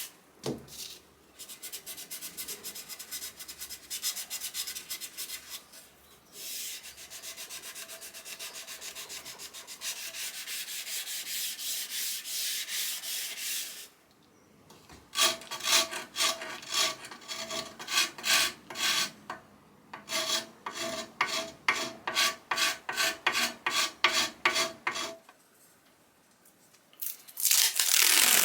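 Abrasive rubbing on a wooden surface, as in sanding during refinishing. A steady stretch gives way after a brief pause to rhythmic back-and-forth strokes at about two or three a second, then stops for a moment before starting again near the end.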